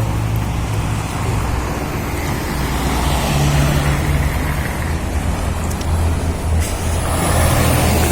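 Motor vehicle engine running steadily with road noise: a low hum under a steady rush.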